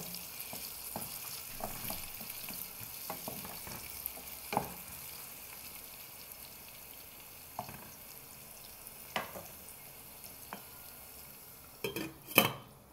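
Sliced onions sizzling in oil in a stainless steel pot, the hiss slowly growing quieter, with a few light knocks of a wooden spoon against the pot. Near the end a stainless steel lid clanks loudly against the pot twice.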